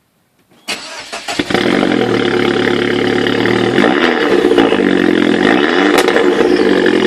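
R56 Mini Cooper S 1.6 turbocharged four-cylinder, breathing through a JCW exhaust manifold, Evolve sports-cat downpipe and JCW backbox, cranking and firing up, then settling into a loud idle. Its pitch swells and drops back three times in light throttle blips.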